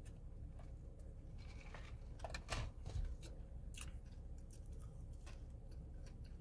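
Crunchy food being chewed close to the microphone: a handful of sharp, separate crunches, the loudest about halfway through.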